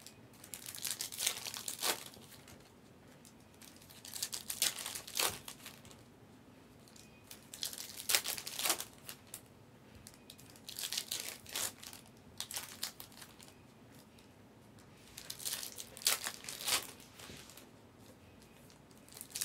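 Foil trading-card pack wrappers crinkling as they are picked up and handled, in short crackly bursts every few seconds.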